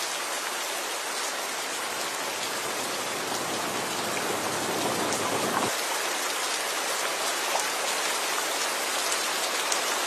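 Steady rushing hiss of falling water splashing down over rock, a waterfall's continuous spray. A little over halfway through, the deeper part of the sound drops out suddenly and a lighter, thinner splash carries on.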